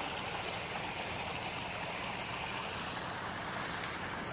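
Steady rushing outdoor noise with a faint, even low hum underneath, unchanging throughout.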